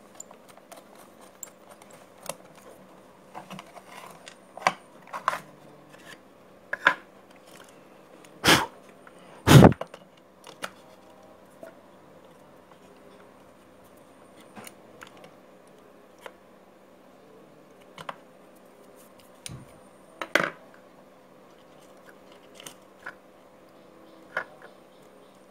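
Screwdriver working screws out of a small painted metal enclosure and the case being handled: scattered clicks and scrapes, with two louder knocks about a third of the way through.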